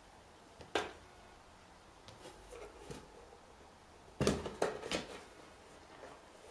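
Knocks and scrapes on an empty cardboard box as a kitten bats at it and climbs onto it: one sharp knock under a second in, then a quick cluster of knocks about four to five seconds in.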